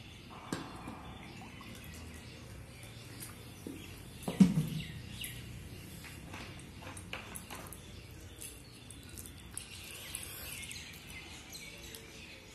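Close-up eating sounds: fingers mixing rice and curry on a steel plate and mouth-eating, with many small clicks and smacks. One brief, louder low sound comes about four seconds in.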